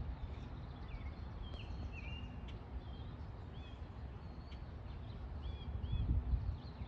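Small songbirds chirping in the background, a scatter of short whistled notes, some sliding up or down in pitch. Under them runs a steady low rumble that swells briefly about six seconds in.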